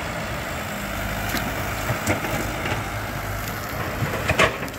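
Caterpillar E120B hydraulic excavator's diesel engine running steadily, with a few sharp knocks and snaps as the arm works into the brush; the loudest cluster comes just before the end.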